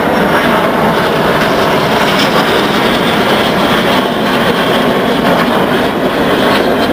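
Aero L-39 Albatros jet trainers flying overhead, their single turbofan engines making a loud, steady jet noise.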